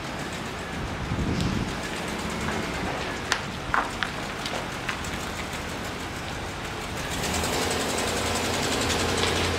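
Chevrolet Silverado 3500 flatbed truck's engine running as the truck manoeuvres at low speed, with a few sharp clicks about three to four seconds in. The engine note grows louder and rises over the last couple of seconds as the truck pulls away.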